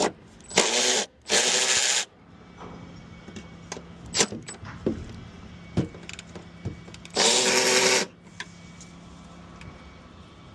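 Power tool run in three short bursts, two close together near the start and one later on, with a few clicks and knocks of metal tools in between.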